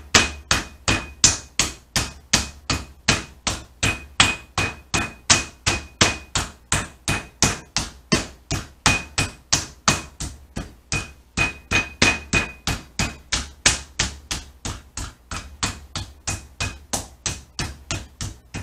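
Metal meat mallet pounding a butterflied pork loin through plastic wrap, flattening it to an even thickness. The blows are steady and sharp, about three a second, with a faint high ring that comes and goes.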